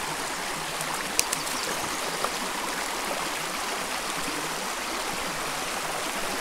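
Small trout creek's water flowing steadily, with a few brief sharp clicks between one and two and a half seconds in.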